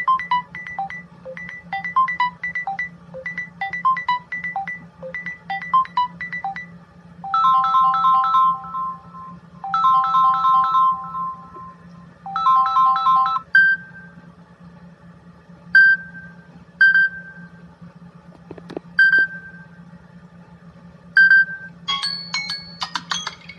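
Stock Samsung Galaxy A50 ringtones playing one after another: first a quick repeating electronic melody, then a few seconds of held chords, then sparse single high chimes, and a denser, brighter jingle starting near the end. A steady low hum runs underneath throughout.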